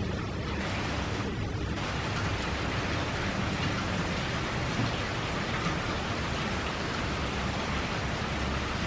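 Steady rain falling on grass, an even hiss.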